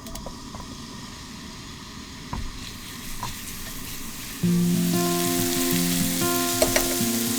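Food sizzling as it fries in a pan, the hiss growing louder about a third of the way in, with a few light clicks. Background music with sustained notes comes in just past halfway and is the loudest sound from then on.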